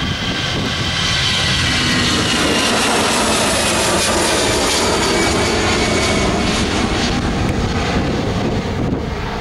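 Airbus A320's twin turbofan engines at takeoff thrust: a loud, steady jet roar with high whining tones that slide slowly downward as the airliner lifts off and climbs away.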